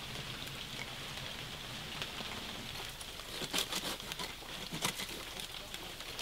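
Scattered crackles and snaps of twigs and leaf litter being handled and cut with a hand pruning saw in forest undergrowth, with the sharpest snaps about three and a half and five seconds in, over a steady high hiss.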